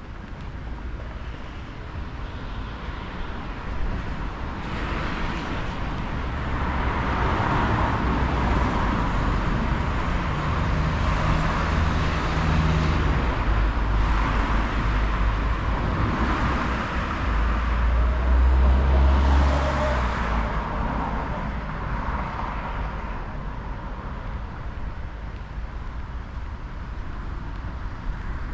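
Road traffic: cars passing on a street, their tyre and engine noise swelling and fading. The loudest pass comes about two-thirds of the way through.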